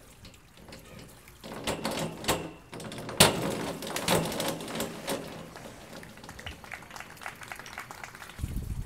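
A diving springboard clattering as the diver takes off, then a sharp splash about three seconds in as the diver enters the pool, with water splashing on for a couple of seconds and dying away.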